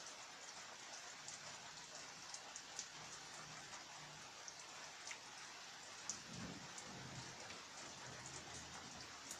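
Steady rain falling, a soft even hiss with many scattered individual drops ticking close by.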